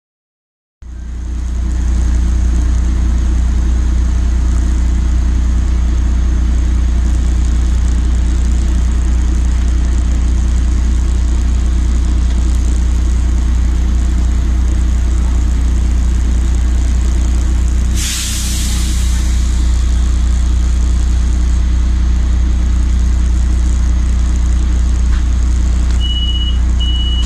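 Solaris Urbino 12 city bus engine idling, heard from inside the passenger cabin as a steady low drone. About two-thirds of the way through comes a sudden burst of compressed-air hiss from the bus's pneumatics. Near the end there is a row of short high beeps: the door-closing warning.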